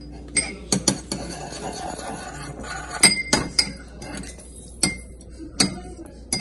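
Metal spoon stirring a liquid sauce in a small ceramic bowl, clinking against the bowl's sides about eight times at irregular intervals, the loudest about three seconds in.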